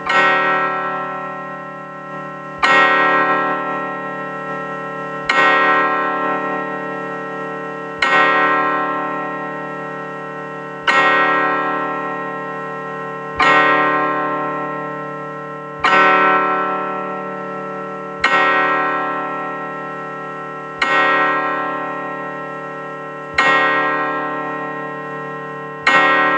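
Imitation of a tower clock bell striking twelve, made from a synthetic voice: a single bell-like note struck about every two and a half seconds, each ringing rich in overtones and fading before the next, about eleven strikes.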